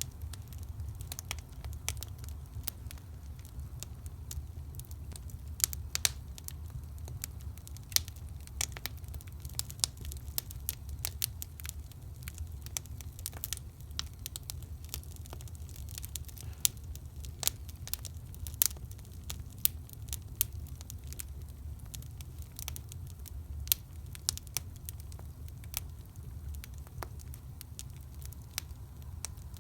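Firewood burning in an agungi, a traditional Korean wood-fired firebox: irregular crackling with occasional sharp, louder pops, over a low steady rumble.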